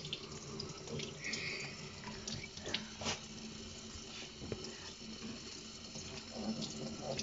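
Kitchen faucet running, its water splashing over a wet puppy's coat into a stainless-steel sink, with a few light knocks about the middle.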